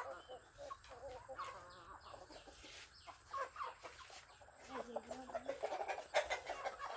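Several chickens clucking, many short calls overlapping, busiest a little past the middle.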